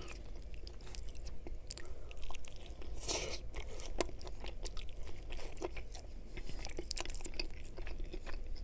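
Close-up eating sounds: fingers picking at a piece of chicken Caesar wrap, then biting and chewing it, with many small wet mouth clicks and one louder crunchy bite a little after three seconds.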